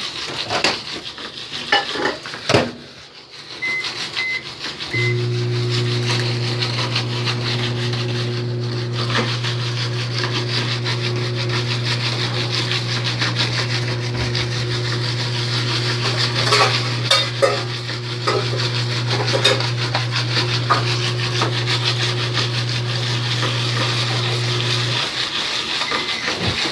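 Jiffy Pop aluminium pan being shaken back and forth over a stove burner, scraping and rattling against the grate with an occasional knock, before the kernels start popping. Three short high beeps come about four seconds in, and a steady low hum runs from just after them until shortly before the end.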